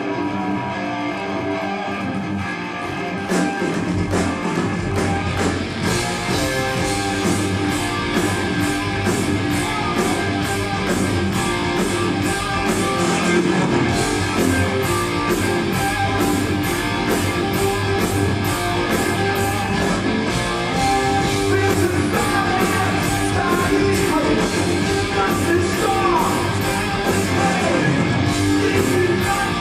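Old-school heavy metal band playing live, with electric guitars and drums; the full band comes in louder about four seconds in, and a steady drum beat runs from about six seconds in.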